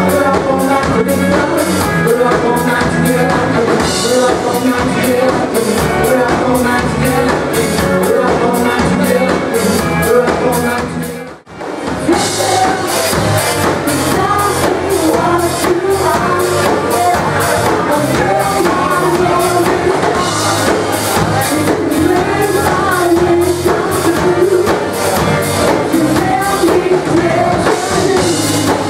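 Live variety band playing pop and rock covers, with a drum kit, bass, keyboards, electric guitar and singing. The music breaks off for a moment about eleven seconds in, then picks up again with a new song.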